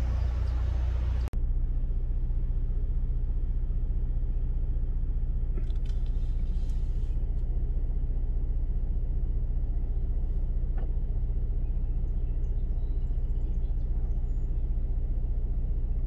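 Car engine idling steadily, a low rumble heard from inside the car.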